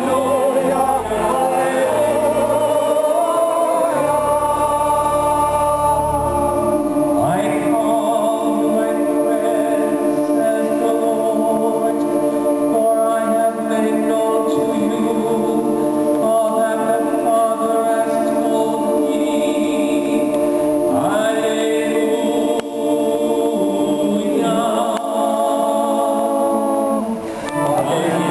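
Church choir singing a sacred piece in long held notes.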